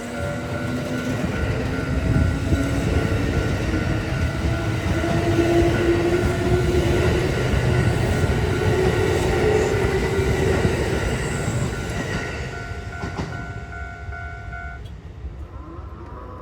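A Kintetsu 8600 series electric train passes over a level crossing. The wheels and running gear are loudest around the middle, with a slowly rising motor whine, while the crossing's warning bell rings steadily and stops about fifteen seconds in.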